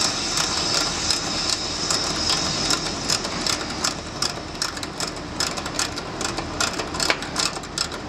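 Ratchet wrench clicking rapidly on an air-conditioner condensing unit's refrigerant service valve stem as the valve is opened back up after a pump-down test. Under the clicks is a high hiss of refrigerant rushing back through, which fades over the first few seconds as the pressures even out.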